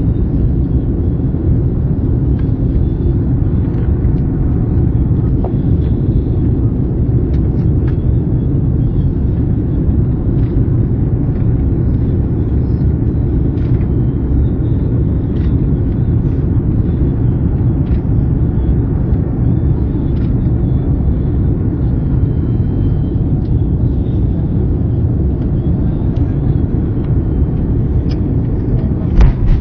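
Airbus A310 cabin noise on final approach: the engines and airflow make a steady low rumble through the fuselage, with faint light rattles. About a second before the end a sudden louder jolt comes in as the main wheels touch down on the runway.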